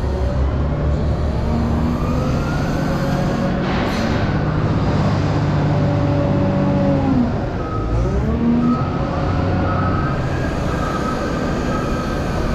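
Farm machine's diesel engine working under load while pushing up a heap of sunflower pellets, its pitch rising and falling with the throttle and dipping sharply about eight seconds in before picking up again. A brief hiss comes about four seconds in.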